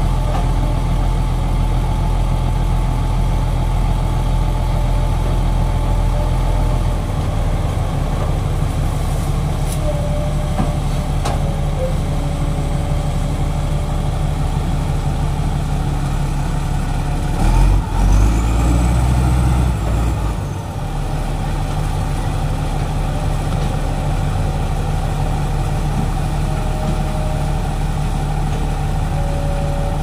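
Heavy diesel engines of a bogged Komatsu D85ESS bulldozer and the Sany SY215C excavator recovering it, running steadily. About halfway through, the engine note swells for about three seconds under load, then settles back.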